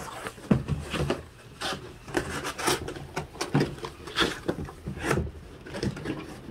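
Corrugated cardboard being handled and folded together: irregular rubbing and scraping with soft knocks.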